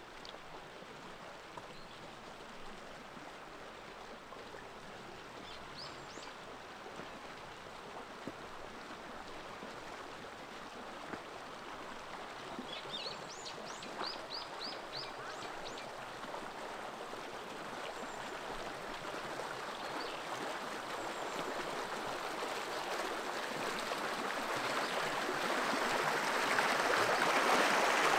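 Flowing stream water, growing steadily louder throughout. A bird chirps a few times in quick succession about halfway through.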